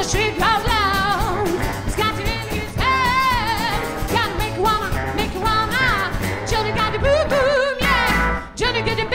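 A live country-style band playing: a woman singing over acoustic guitar, upright double bass and drums.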